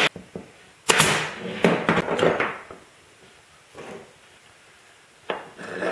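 A pneumatic pin nailer fires once with a sharp snap. A second later come a run of knocks and clatter as the nailer and wooden parts are set down and handled on the workbench, with a few more light wooden knocks near the end.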